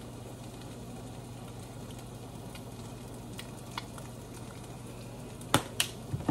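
Eggs sizzling steadily in a frying pan. About five and a half seconds in come two sharp clacks of kitchen utensils.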